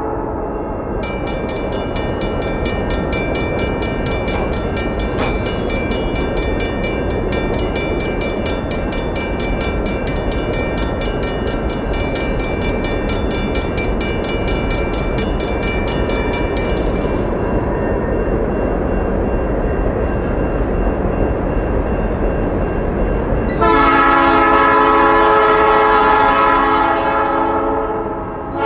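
Horn of an approaching freight locomotive sounding for the grade crossing, steady and more distant at first, then a much louder blast about 24 seconds in that breaks off just before the end and sounds again. Over the first half a grade-crossing bell rings rapidly.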